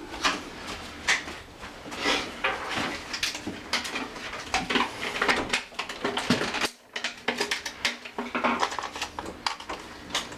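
Irregular clicks, taps and light rattles of small hard parts and tools being handled while fitting a light switch and its cover plate.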